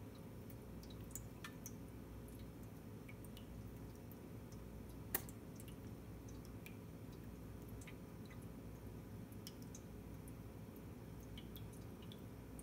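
A cat lapping water from a stainless steel bowl: faint, scattered wet clicks over a steady low hum, with one sharper click about five seconds in.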